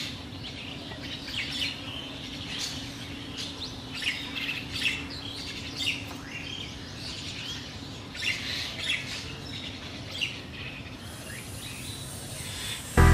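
Small birds chirping, many short quick calls one after another, over a steady low hum that fades out near the end.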